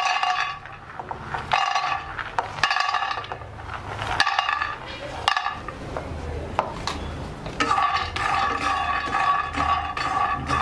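Metal spatula stirring and scraping peanuts as they dry-roast in a metal pan, giving a ringing scrape with sharp clinks in several stretches that grow busier near the end.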